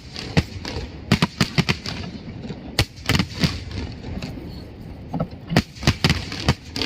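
Fireworks bursting in an irregular series of sharp bangs and cracks, bunched in quick clusters with short gaps between.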